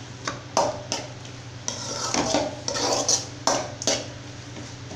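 Steel spoon scraping and knocking against a metal kadai while mixing and mashing spiced potatoes, with a few sharp clinks near the start and again near the end.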